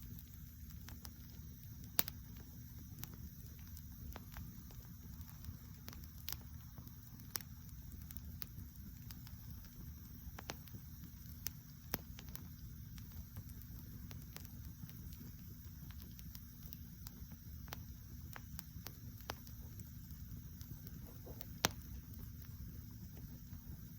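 Open wood fire burning directly on the ground, crackling with irregular sharp pops over a low steady rumble; the loudest pops come about two seconds in and near the end.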